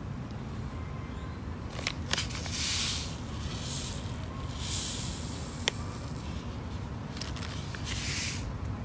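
Three short gritty scraping sounds of sand being worked around a potted succulent, with a few sharp clicks between them, over a steady low hum.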